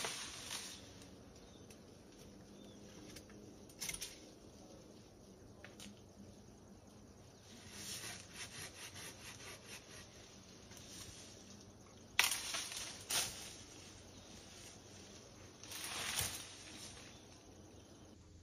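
Faint rustling and snapping of branches and leaves as overgrown bush is cleared by hand, in several separate bursts, with a rapid rattling stretch and the loudest sharp crack past the middle.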